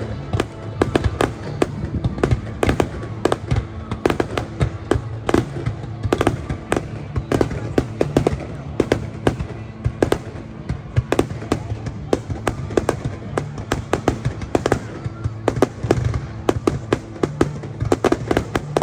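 Fireworks exploding in rapid succession, several sharp bangs a second, with music playing underneath.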